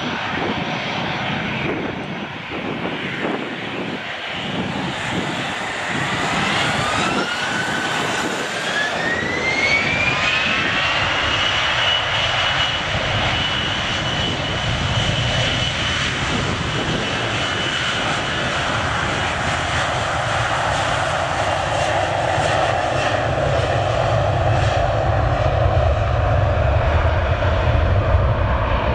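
Airbus A321 jet engines spooling up for takeoff: a whine rises in pitch over several seconds, then holds steady and high while a deep rumble builds as the airliner rolls down the runway.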